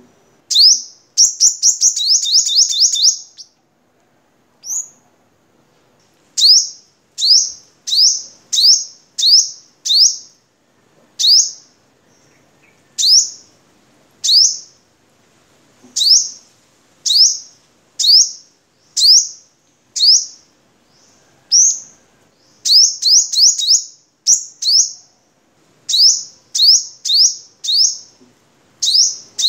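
Male sunbird singing: loud, high, sharp chirps that sweep downward. A fast rattling run opens the song, then single notes come about once a second, with another quick cluster of notes about two-thirds of the way through.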